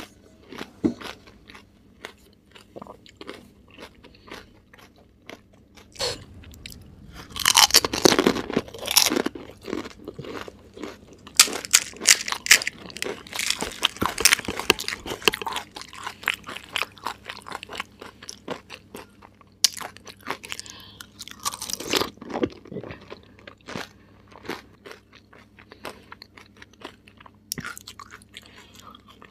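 Close-miked crunching and chewing of pani puri, crisp hollow fried puri shells filled with mint water. Rapid small crunches run throughout, with three louder spells of heavier crunching.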